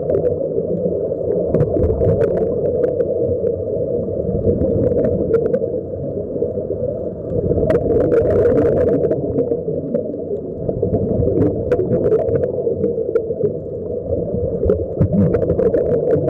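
Muffled underwater noise heard through a camera housing: a steady low rumble and bubbling as air streams out of sea-walker diving helmets, with scattered light clicks and ticks throughout.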